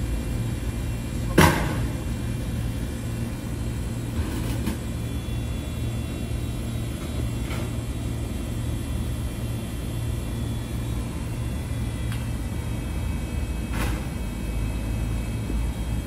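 Steady low rumble of running machinery, with a sharp click about a second and a half in and a few fainter ticks later. A faint high whine under the rumble stops about three quarters of the way through.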